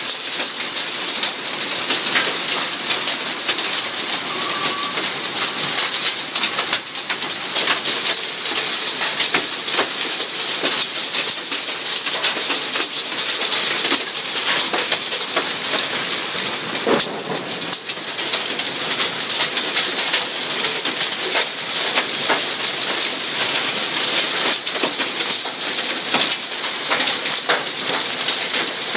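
Hail and rain pelting a garden's grass, paving slabs and shrubs: a dense, steady hiss made up of countless small hard ticks.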